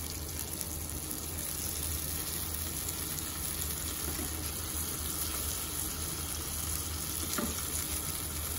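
Butter sizzling steadily in a hot frying pan as thick slices of custard-soaked French toast, coated in crushed feuilletine, fry in it.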